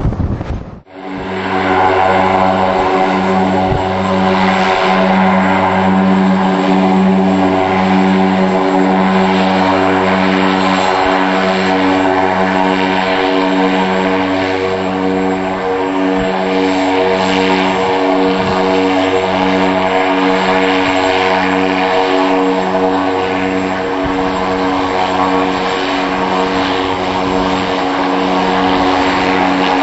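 IA-58 Pucará's twin Turbomeca Astazou turboprop engines and propellers running on the ground while the aircraft taxis: a loud, steady propeller drone with a whining turbine hiss above it, throbbing at a slow even beat about once a second.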